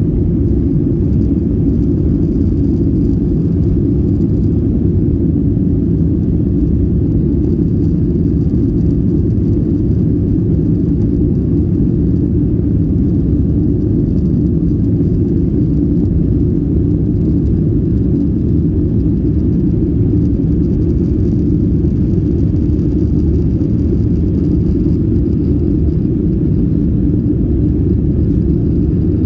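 Jet airliner cabin noise heard from a window seat: a steady low rumble with little high-pitched content, unchanging throughout.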